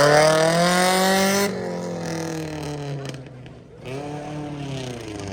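Off-road Suzuki Vitara's engine revving hard, its pitch climbing at first, then easing off after about a second and a half. It drops away briefly past the middle before revving up again.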